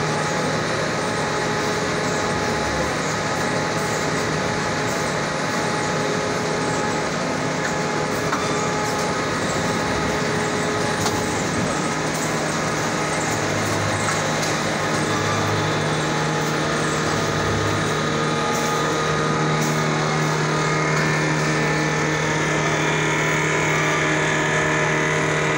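Hunkeler paper-finishing line running steadily at a slow tick-over of about 70 metres per minute, a continuous mechanical hum with several steady tones and a few faint clicks.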